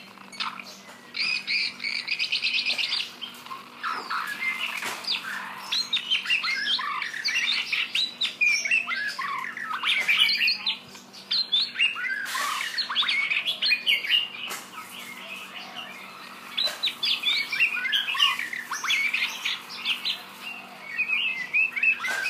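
White-rumped shama singing a long, varied song of rich whistles, squawky notes and quick trills, including a fast rattling trill about a second in.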